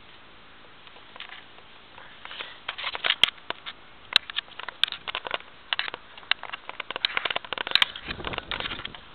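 Irregular crackling, clicks and scrapes of tall grass and stems brushing against the camera as it is carried through vegetation, starting about two and a half seconds in and growing dense, with a brief low rumble near the end.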